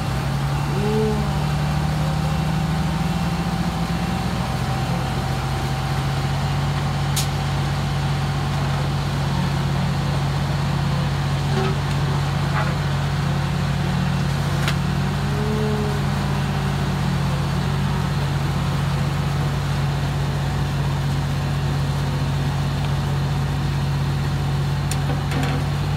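Fire trucks' diesel engines running steadily under pump load, with water pouring from their discharges into a portable dump tank. The engine note drops slightly about four seconds in.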